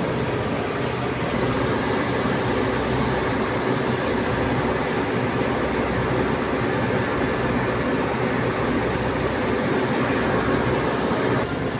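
Steady, loud machinery noise from power plant equipment running: a dense, unbroken rumble with no pauses, shifting slightly near the end.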